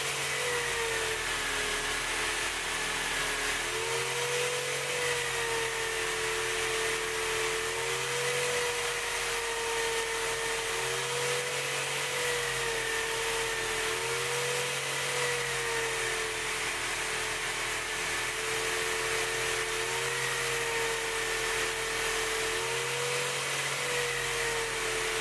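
Electric buffer spinning a white cloth buffing wheel, with a knife's handle and stainless pins pressed against it for the final buffing. A steady motor hum whose pitch dips and recovers slightly every few seconds as the work is pressed on.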